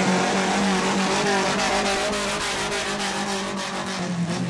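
A competition vehicle's engine running steadily, its pitch wavering slightly up and down.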